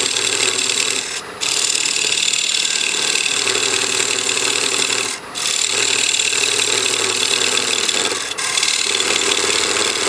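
D-Way parting tool cutting into spinning poplar on a wood lathe, parting the foot of a hollow form off its glue block: a steady scraping hiss from the cut over the lathe's running hum. The cut stops for an instant three times.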